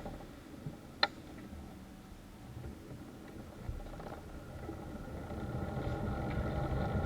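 A motor vehicle engine running, with a sharp click about a second in; the engine grows louder toward the end.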